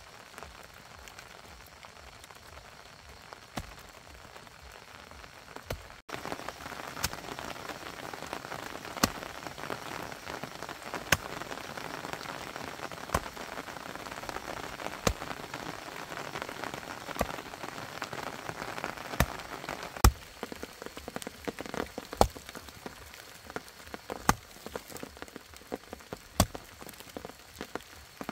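Rain falling, a steady patter with sharp, louder drops striking close by; it gets louder suddenly about six seconds in.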